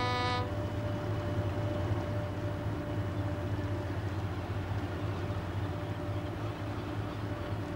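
A vessel's horn blast cuts off about half a second in. After it comes the steady low drone of a car ferry's diesel engines as it crosses the strait, with a faint constant hum over it.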